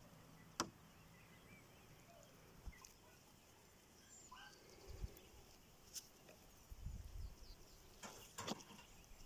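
Near silence: faint outdoor ambience broken by a few soft clicks and a couple of short, faint chirps.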